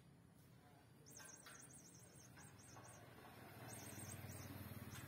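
Toy mouse for cats giving high, wavering squeaks in two runs: about a second in, and again from about three and a half seconds, with a low hum under the second run.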